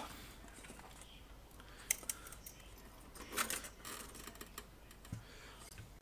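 Faint clicks, taps and rustling as a tube amplifier chassis and its cables are handled and turned round, with a sharper tick about two seconds in and a short run of small clicks a little after three seconds.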